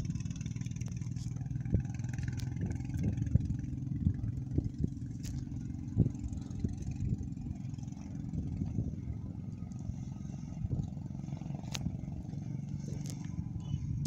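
Motorcycle engine running steadily at riding speed, a low even rumble, with scattered clicks and rattles over a rough gravel track.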